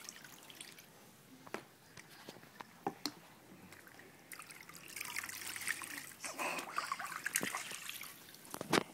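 Bathwater in an infant's plastic tub: scattered drips and small splashes, then, from about five seconds in, louder trickling and sloshing as a washcloth is worked over the baby.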